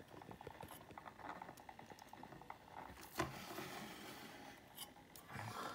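Faint handling noises from fingers adjusting a plastic scale model truck: light ticks and rubbing, with one sharper click about three seconds in.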